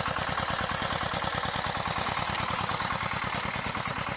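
Two-wheel walking tractor's engine running steadily with a fast, even chugging beat.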